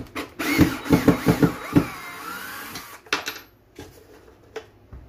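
Cordless drill-driver backing screws out of a wall cabinet: the motor whines for about two and a half seconds with its pitch wavering, and a quick run of about five rattling knocks comes in its first half. A few short clicks and knocks follow near the end.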